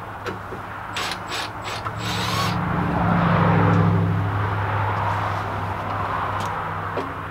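Cordless power driver backing out the bolts that hold a Mazda Miata's pop-up headlight. A few sharp clicks come first, then the motor runs steadily for about four seconds.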